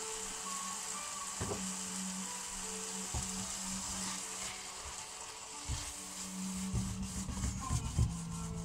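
Beef mince and diced potato sizzling and bubbling in a frying pan with water just added to reduce, while a wooden spatula knocks and scrapes against the pan in stirring, several times in quick succession near the end.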